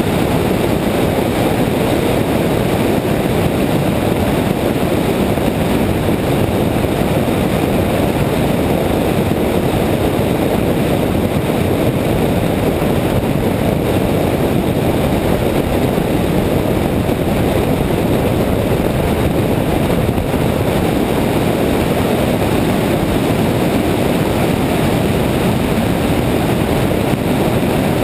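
Steady, loud rush of wind and road noise picked up by a camera mounted on the hood of a moving car.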